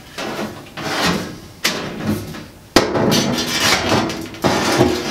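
Sheet-metal panel scraping, flexing and knocking against the car body as it is worked into place in the trunk, with a sharp knock a little past halfway.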